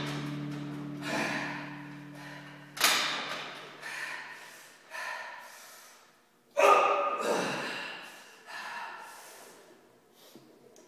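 A weightlifter's forceful bracing breaths, one after another, as he gets under a loaded barbell in a squat rack, the loudest, with some voice in it, about six and a half seconds in. A sharp knock about three seconds in.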